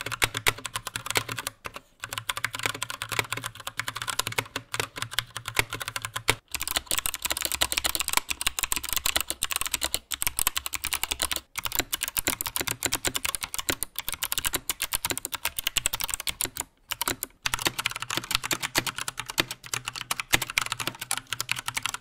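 Fast typing on several 60% mechanical keyboards in turn: a dense, steady clatter of keystrokes, with the board changing every few seconds. The first is most likely the Geek GK64 with its stock Gateron switches. Near the end it is an iKBC Poker 2 with Cherry MX Brown switches.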